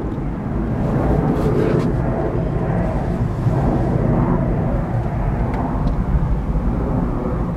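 Wind buffeting an outdoor microphone: a steady, low, fluctuating rumble.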